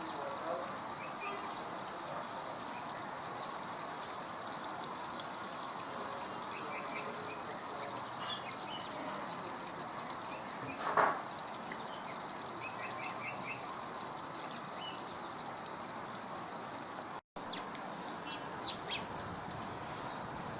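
Small birds chirping in short repeated notes over a steady background hiss, with one brief louder rush about halfway through.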